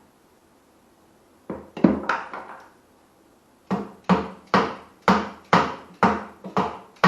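Hammer blows: a couple of knocks, then a steady run of sharp strikes about two a second, each with a short ring.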